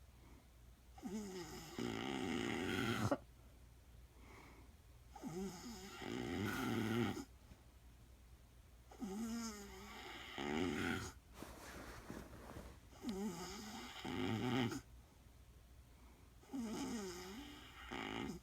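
A woman snoring, five snores about four seconds apart. Each starts with a wavering pitched rattle and swells into a louder, rougher part that stops abruptly.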